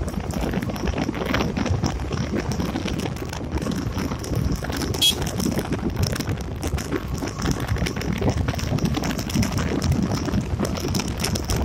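Yamaha Gladiator motorcycle on the move, its single-cylinder engine running under a steady rush of wind buffeting the microphone. A brief sharp high sound comes about five seconds in.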